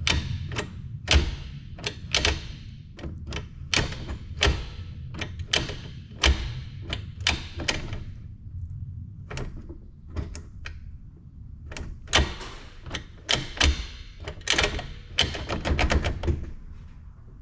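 Irregular sharp clicks and clunks of hand work on a short shifter and its shift cables, with several bursts of quick clicks between short pauses, over a low steady hum.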